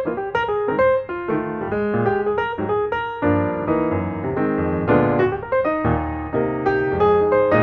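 Background piano music: a steady run of melodic notes with chords in the bass.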